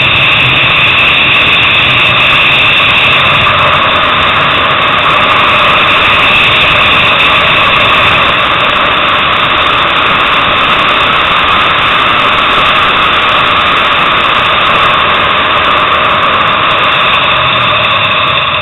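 Motorcycle running hard at racetrack speed, heard from an onboard camera: a loud, steady rush of wind and engine noise with little change in pitch.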